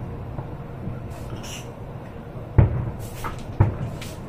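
Aerial firework shells bursting: a loud bang about two and a half seconds in, then a second bang about a second later, with smaller pops around them.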